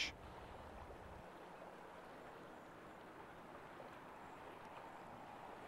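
Faint, steady rush of flowing river water.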